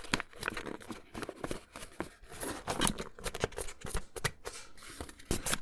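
Thin paper rustling and crinkling with irregular soft crackles and clicks, as a folded origami sheet is handled and its folds are pressed open into a box shape.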